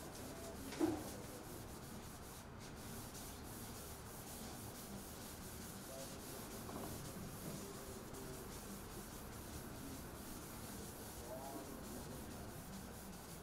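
Chalkboard duster rubbing chalk off a blackboard, a faint, steady wiping. A short vocal sound comes about a second in.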